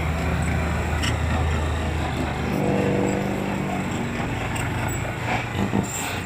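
Heavy diesel engine of a dump truck or bulldozer running steadily, its low hum dropping away about two and a half seconds in.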